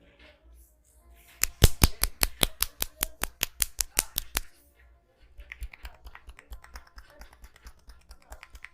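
Rapid rhythmic hand slaps of a percussive massage, loud and sharp at about six a second for some three seconds, then continuing as softer, quicker taps.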